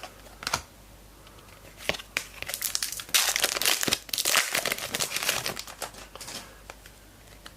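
Plastic trading card pack wrapper crinkling in the hands as a new pack is opened: a few light clicks, then a few seconds of dense crinkling that stops before the end.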